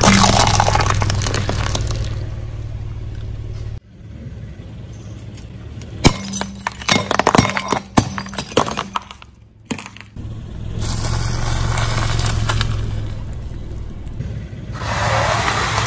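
A car running over objects and crushing them under its tyres: a cluster of sharp cracks, snaps and crunches in the middle, with the car's engine running steadily before and after. The sound stops abruptly twice.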